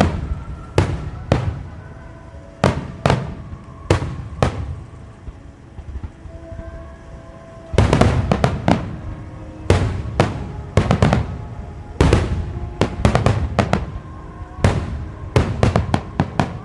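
Starmine fireworks barrage: aerial shells bursting in quick succession, a handful of separate bangs at first, a quieter spell in the middle, then a dense volley of bursts from about halfway on.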